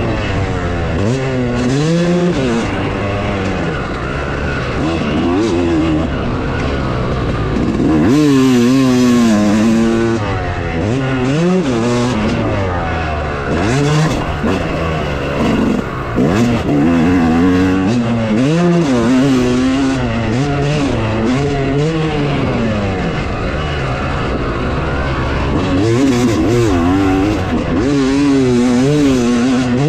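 Yamaha YZ250 two-stroke dirt bike engine ridden hard, its pitch rising and falling every second or two as the throttle is opened and closed.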